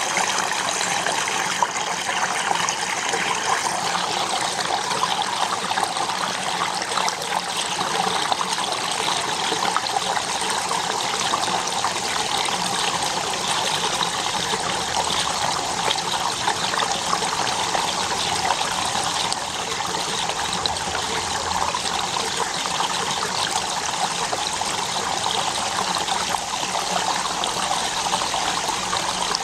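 Steady trickle of running water with a fine crackle, even in level.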